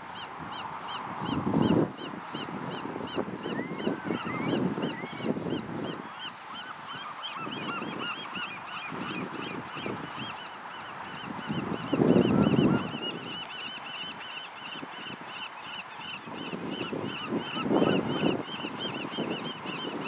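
Gulls calling in a resting flock: a steady chorus of short, high, rapidly repeated calls, with three louder, lower bursts, the loudest about twelve seconds in.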